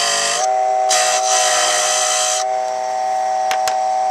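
Dremel Moto-Lathe Model 700's small electric motor running at steady speed with a whine, while a hand gouge cuts a spinning wooden dowel with a hissing scrape. The cutting stops about two and a half seconds in, leaving the motor running alone, and two quick clicks come near the end.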